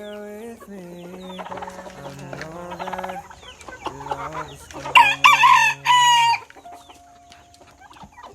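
Chickens clucking, then a rooster crowing loudly once, about five seconds in, for over a second.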